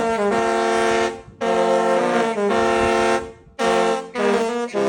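A Disney cruise ship's musical horn (ship's whistle) playing a tune: loud, long held notes that step from pitch to pitch, with short breaks between phrases.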